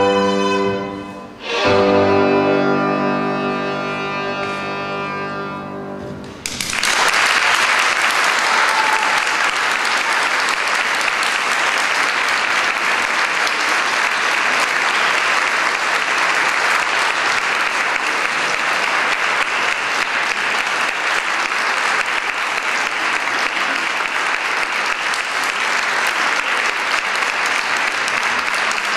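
A violin piece ends with a short note and then a long final note that fades over about four seconds. Audience applause breaks out about six seconds in and carries on steadily.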